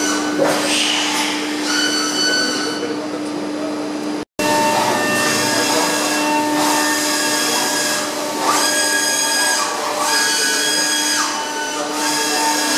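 Deckel Maho DMU 60T machining centre running, a steady hum under high whining tones that start and stop in stretches of a second or a few seconds as the spindle head moves through its axis traverses. The sound cuts out for an instant about four seconds in.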